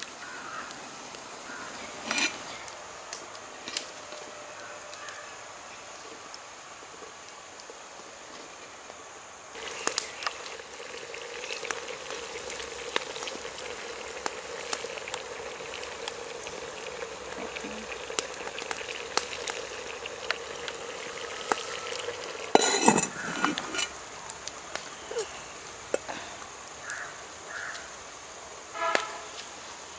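A crackling wood fire under a clay pot of jackfruit seeds simmering in water: a steady hiss with scattered small pops and clicks. About three-quarters through comes a short burst of clattering, and a brief ringing clink near the end.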